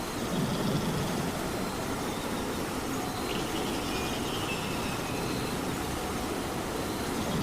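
Steady rain falling, an even hiss that stays level throughout, with a brief low swell about half a second in.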